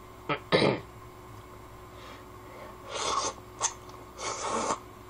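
Kalguksu noodles being slurped from a bowl: a few short, hissing sucking bursts from about three seconds in.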